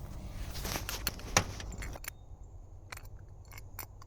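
Handling noise: rustling for about two seconds, then scattered light clicks and small rattles, like small hard objects being handled.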